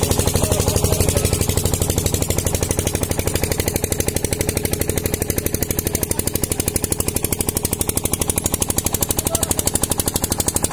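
Diesel engine of a tubewell irrigation pump running steadily with a fast, even chugging beat, driving the pump by belt to lift water.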